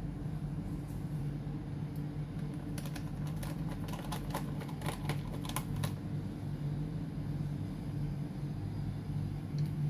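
A quick run of small sharp clicks and taps lasting about three seconds, from plastic and metal laptop parts being handled, over a steady low hum.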